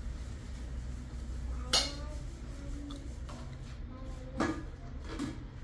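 Tableware clinking: three sharp knocks of glasses or metal dishes, each with a short ring, the first about a second and a half in and the loudest, the others near the end, over a steady low hum.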